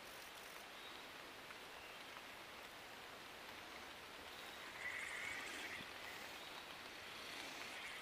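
Faint, steady hiss of light rain falling on a shallow creek's surface, briefly louder about five seconds in.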